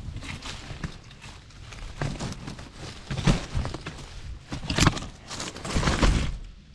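Wind buffeting the microphone as a low rumble, with irregular rustling, scraping and a few knocks from handling and movement, the loudest about three and five seconds in; it drops off sharply at the end.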